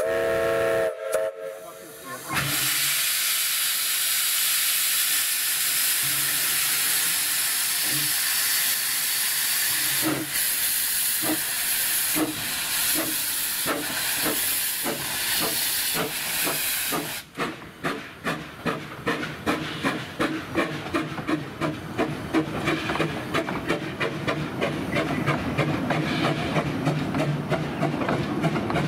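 An 1897 Baldwin steam locomotive: a short whistle blast at the start, then a long steady hiss of escaping steam with a few separate chuffs. From about two-thirds of the way in, quick even beats of about three a second as the train gets under way.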